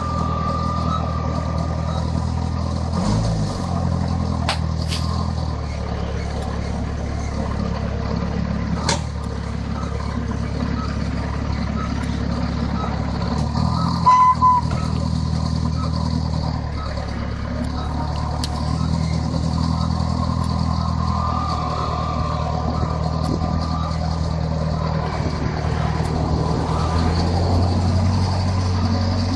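Engine of a Princeton PB70 truck-mounted forklift running steadily as it drives over a dirt site, its note shifting a few times and rising near the end. A brief, loud high beep sounds about halfway through.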